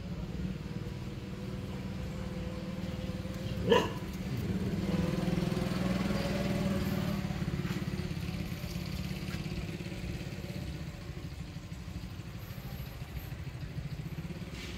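A passing motor vehicle's engine rises and fades over a steady low rumble. There is a single sharp click about four seconds in.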